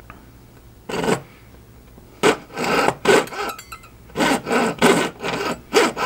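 Jeweler's saw (Haymaker saw frame) cutting a silver band on a wooden bench pin: short rasping back-and-forth strokes. They start about a second in and come in three groups with brief pauses between them.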